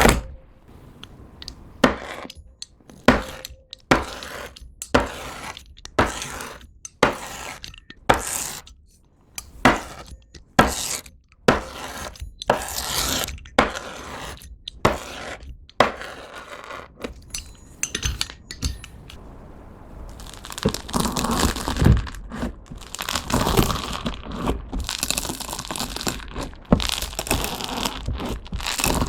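Glossy slime being pressed and stretched by hand, giving sharp wet pops and clicks about once a second. After about twenty seconds it changes to the dense crackling and crunching of dried floam slime, its hardened foam beads breaking as it is squeezed.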